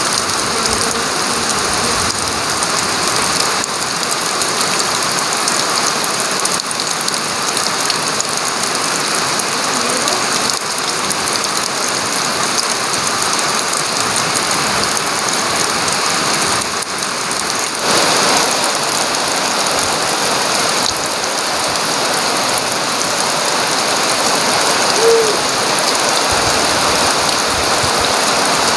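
Heavy tropical rain pouring steadily, a dense even hiss that grows a little louder about eighteen seconds in. A single brief high tone stands out near the end.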